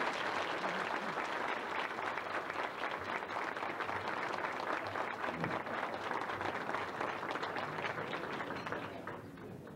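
Audience applauding, a dense patter of many hands clapping, dying away near the end.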